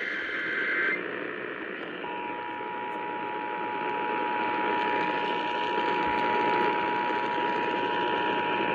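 Emergency Alert System broadcast over radio static: the warbling two-tone data burst of a SAME header ends about a second in, and about two seconds in the steady two-tone EAS attention signal starts and holds, announcing a Child Abduction Emergency (Amber Alert).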